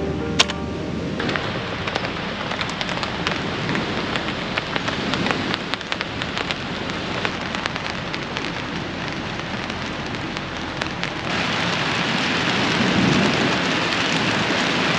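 Rain falling on a camping tent and tarp: a steady hiss full of sharp drop ticks, growing heavier and denser about eleven seconds in.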